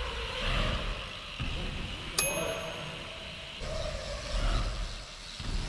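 Rolling noise from a bike riding in a large hall, with one sharp metallic ping that rings on briefly about two seconds in.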